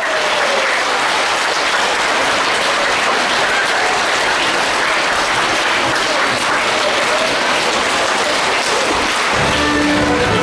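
Theatre audience applauding steadily. About nine seconds in, the orchestra starts playing under the applause.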